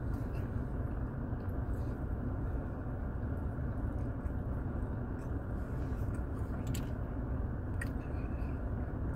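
Steady low rumble of a car's cabin with the engine running, unchanging throughout, with a few faint clicks near the end.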